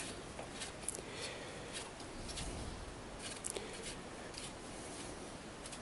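A few faint, irregular small clicks and light rubbing as a hand handles the bolts and mounting points of a bare motorcycle frame, over quiet workshop room tone.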